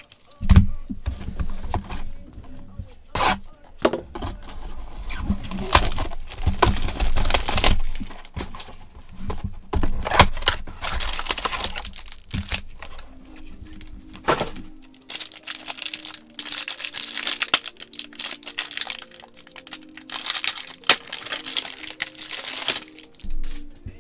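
Foil trading-card pack wrapper crinkling and tearing as it is ripped open, in irregular crackly bursts.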